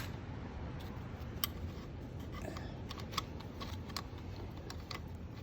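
Scattered light clicks and taps of Hinson clutch plates being worked into the clutch basket, over a steady low hum.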